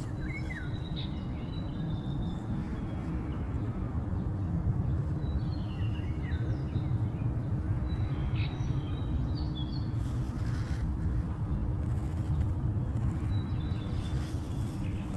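Steady low rumble of distant vehicle noise with a faint steady hum. Short, high, thin bird chirps come and go throughout.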